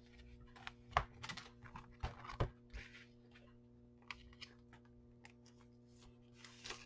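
Bagged comic book with a cardboard backing board being handled: faint, scattered plastic rustles and light taps.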